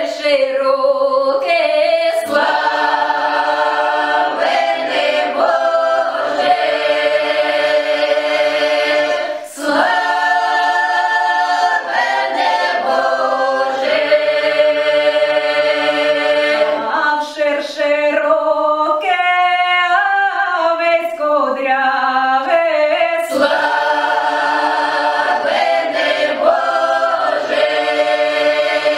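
Mixed folk choir of women's and men's voices singing a Ukrainian Christmas carol in close harmony, in long held phrases with brief breaths between them.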